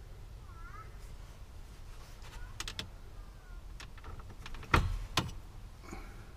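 Scattered clicks and knocks from fitting a roof lining panel back up with screws, the loudest two close together about three quarters of the way through, with a brief faint squeak near the start.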